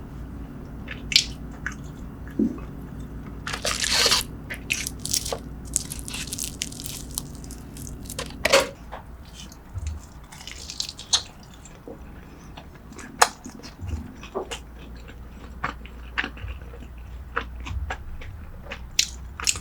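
Close-up eating sounds: biting and chewing on braised seafood and short ribs, with crunching, wet mouth noises and scattered sharp clicks.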